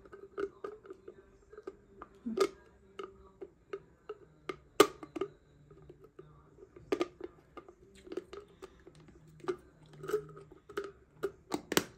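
Irregular plastic clicks and taps from handling a wall-mounted soap dispenser as it is closed up after opening it with its key, with sharper snaps about five seconds in and just before the end.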